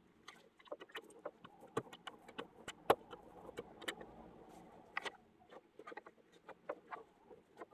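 Rubber brayer worked through tacky block-printing ink in a tray, giving a run of irregular small sticky crackles and light clicks, the sharpest about three seconds in.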